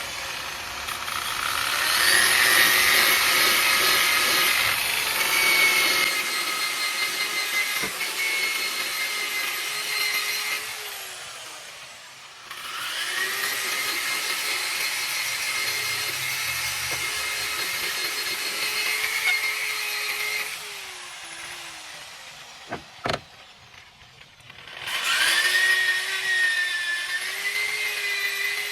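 Corded electric power tool sanding a car's steel frame, its motor whine running in three long spells with short breaks between, the pitch sagging as it winds down at the end of each. A short sharp click comes in one of the breaks.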